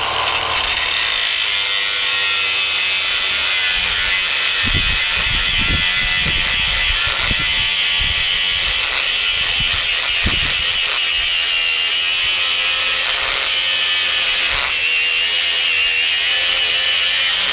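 A power tool cutting, its motor running steadily with a high whine, with a few low knocks from the work piece along the way.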